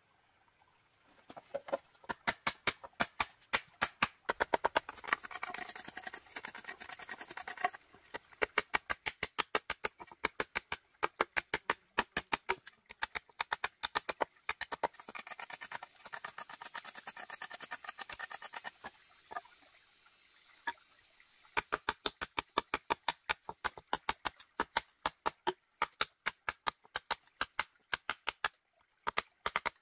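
A knife blade chopping at a thin green bamboo stick on a wooden block: a rapid run of sharp strikes, several a second, starting about a second and a half in, with a pause of about two seconds about two-thirds of the way through before the strikes go on.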